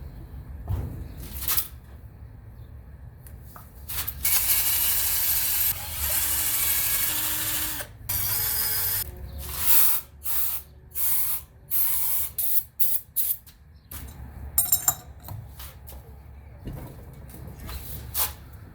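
Cleaning spray hissing onto the dirty engine valves: one long hiss of about four seconds, then a run of short bursts.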